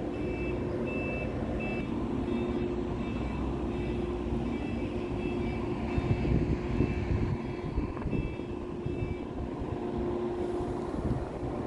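A heavy vehicle's reversing alarm beeping about twice a second, stopping near the end, over the steady hum of a running diesel engine.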